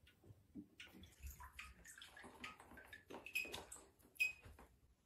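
Faint water sounds from a glass aquarium tank: a hand and a phone lowered into the water, with small splashes, drips and light taps scattered throughout, a little louder a few seconds in.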